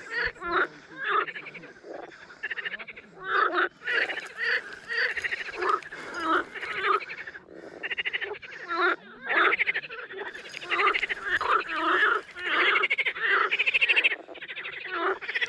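A chorus of frogs croaking, short pulsed calls repeating and overlapping one after another.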